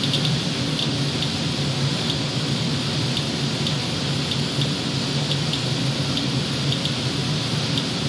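Inspector Alert Geiger counter clicking irregularly, about two to three clicks a second, as it reads around 150 to 160 counts per minute at an HVAC air filter. Under the clicks runs a steady rushing noise with a low hum.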